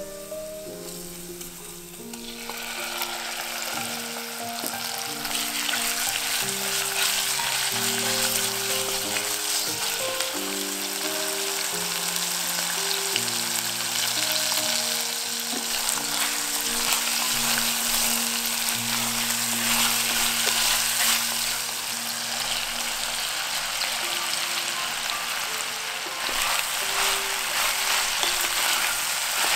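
Chicken thigh pieces and garlic frying in hot olive oil, with a loud sizzle that starts about two seconds in as the meat goes into the pot and keeps going while it is stirred with a wooden spatula. Soft background music with held notes plays underneath.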